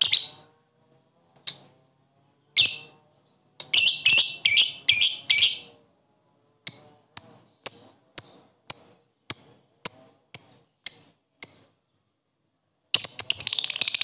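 Lovebird calling: a few harsh chattering calls, then a run of about a dozen short, sharp chirps at roughly two a second. Near the end comes a long, fast rattling trill, the 'ngekek' that lovebird keepers prize.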